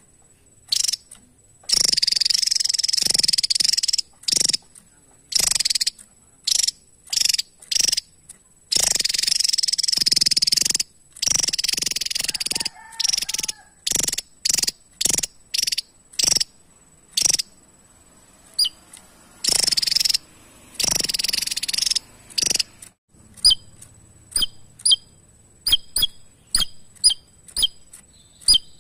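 Javan tesia calling: harsh, rasping rattles lasting about two seconds each, three times, separated by runs of short sharp notes. In the last few seconds it gives a quick series of clear notes that slide downward, about two a second.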